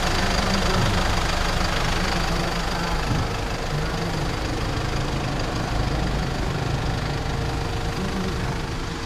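Mercedes-Benz Sprinter 315 CDI's four-cylinder turbodiesel idling steadily with the bonnet open.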